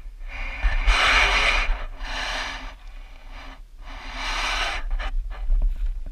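Heavy breathing close to the microphone, three long breaths in and out, with a few footsteps crunching on gravel near the end.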